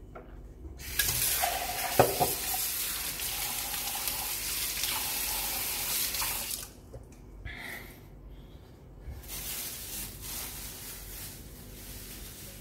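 Water running from a tap into a sink for about six seconds, with a knock about two seconds in. It then runs again, more quietly, for a couple of seconds.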